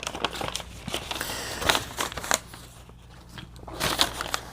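A sheet of paper rustling and crinkling as it is handled, in a few short rustles with some light clicks.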